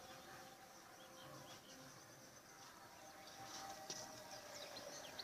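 Near silence: faint background ambience, with a few faint, short high chirps in the last couple of seconds.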